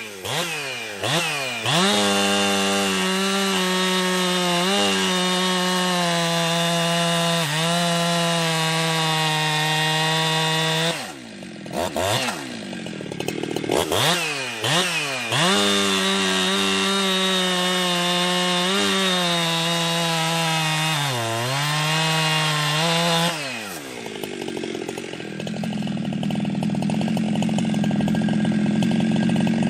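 Ported Jonsered 2071/2072 two-stroke chainsaw with a modified exhaust, blipped a few times and then held at high revs for several seconds, twice. Between the two runs it drops back with a few quick revs. Near the end it falls to a lower, steadier note.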